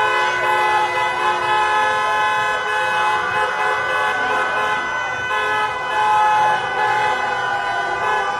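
Many car horns honking at once in celebration, long overlapping blasts held into a steady din, with crowd cheering underneath.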